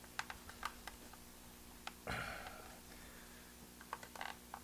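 Small clicks and taps of a plastic pocket radio case being handled as its back cover is opened at the top, with a brief soft rush of noise about two seconds in.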